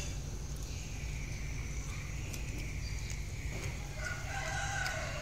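A cat chewing and tearing at a piece of raw chicken, with scattered small wet clicks over a steady low rumble. About four seconds in, a pitched call from another animal joins in.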